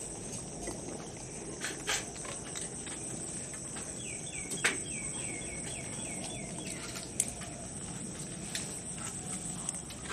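Small wet clicks and smacks of puppies licking and mouthing a hand, over a steady high insect buzz. About four seconds in comes a rapid run of about ten short falling chirps, and one sharp click is the loudest sound.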